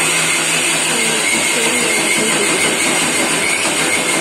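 Electric mixer grinder (mixie) running steadily, grinding soaked rice and urad dal with water into dosa batter.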